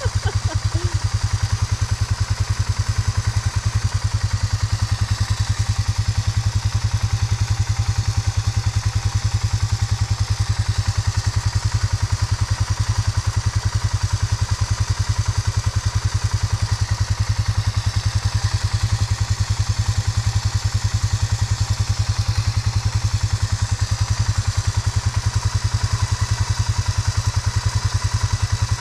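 Polaris 570 ATV's single-cylinder engine running steadily at idle, with a faint steady whine, while the electric winch reels the new line onto its spool.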